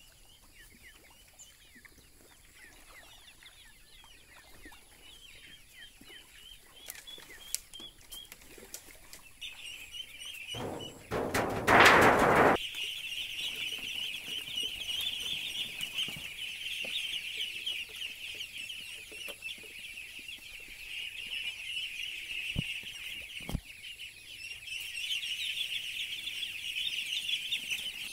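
Faint chirping and clucking of hens, then a loud rush of noise lasting about two seconds, followed by the dense, continuous high-pitched peeping of a crowd of ducklings and young chicks.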